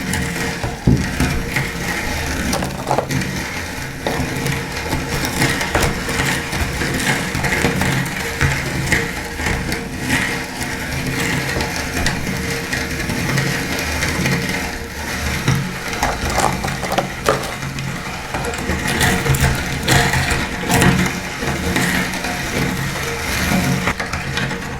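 Electric meat grinder running with a steady motor hum while grinding food, with irregular crunching and crackling as the pieces are crushed.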